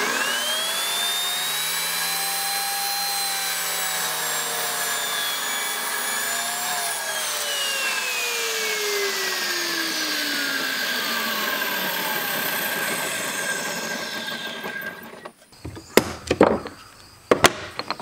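Table saw motor starting with a rising whine and running steadily while a small walnut block clamped to a crosscut sled is cut. About seven seconds in the saw is switched off and winds down with a long falling whine. A few sharp knocks near the end.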